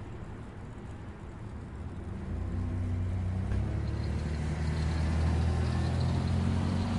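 Street traffic, with a motor vehicle's engine growing louder about two seconds in and running with a low, steady hum as it draws close.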